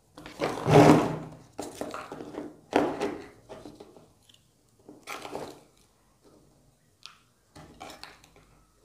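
A metal spoon scraping and knocking in a plastic bowl and against a pipe as damp, powdery rocket-fuel mix is scooped and packed in. It comes as a series of separate scrapes and light knocks, the loudest just under a second in.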